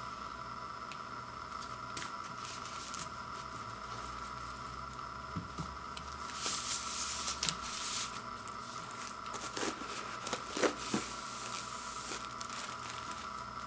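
Clear plastic shrink wrap being torn open and peeled off a vinyl LP gatefold sleeve, crinkling and crackling in scattered bursts that are busiest in the second half.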